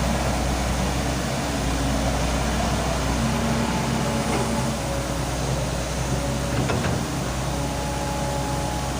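Volvo excavator's diesel engine running steadily under work, with faint held tones over the engine noise and a short knock about seven seconds in.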